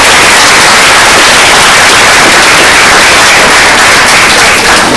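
Small audience of students applauding steadily, loud and close to the microphone, easing off near the end.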